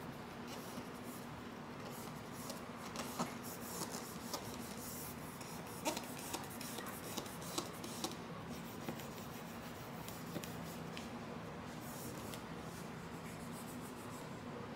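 Hands rubbing and smoothing self-adhesive vinyl film down onto a board, with scattered soft taps and crinkles of the film over a low steady hum.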